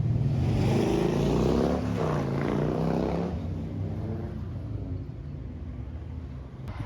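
An engine passing close by: it swells, its pitch falls as it goes past, and it fades to a low rumble.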